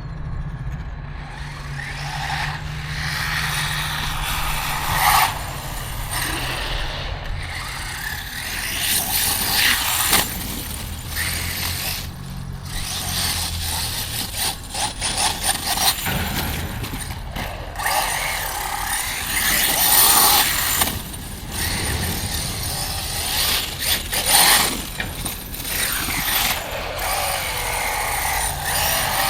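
Electric RC truck being driven, its motor and drivetrain whirring and its tires running over the ground, swelling and dropping again and again as the throttle is worked.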